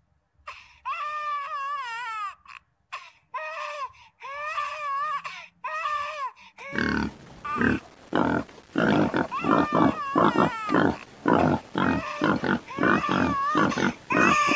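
Baby macaque crying in distress: high, wavering cries in short phrases, which turn about halfway through into loud, harsh screams repeated about two or three times a second.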